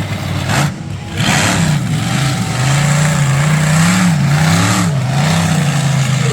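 Monster truck engine running loud, revving up and down several times with a steady rumble between the revs.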